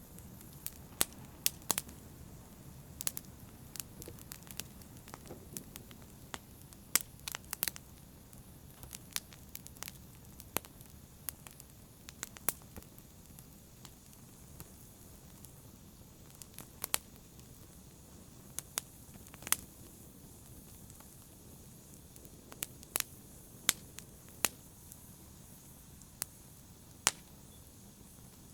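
Wood fire crackling in a fireplace: irregular sharp pops and snaps, a few a second, over a steady low rumble of burning.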